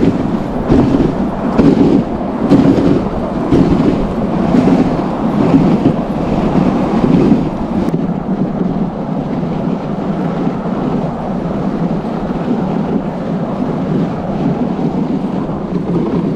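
Dog sled runners rumbling and scraping over packed snow, with a regular bump about once a second for the first half, then a steadier rumble.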